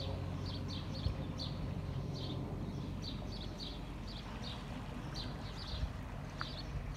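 Small birds chirping in short, high notes, a couple a second, over the low steady hum of a narrowboat's engine.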